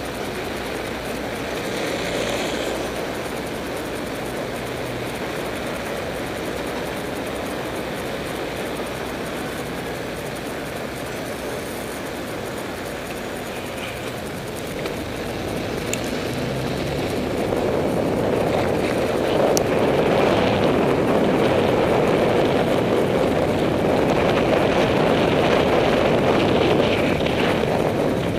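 Road and traffic noise picked up by a helmet-mounted camera, with a bus engine running close by at first. About halfway through it grows louder and rougher as the bicycle picks up speed and wind rushes over the microphone.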